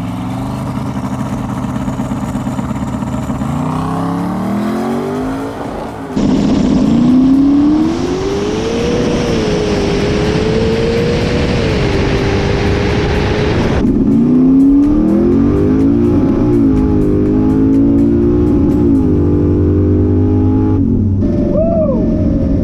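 Twin-turbocharged Chevrolet Camaro engine accelerating hard, its pitch climbing and then holding high, with a loud rushing noise over it for several seconds. The engine sound breaks off abruptly twice and picks up again, rising and falling in revs.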